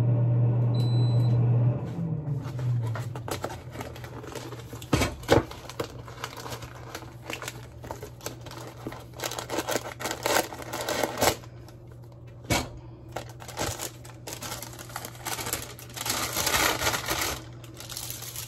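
A steady low electric hum, with a short high beep about a second in, cuts off just under two seconds in. Then paper and cardboard rustling and crinkling as a box of paper sandwich bags is opened and a paper bag pulled out and handled, with scattered sharp clicks and taps.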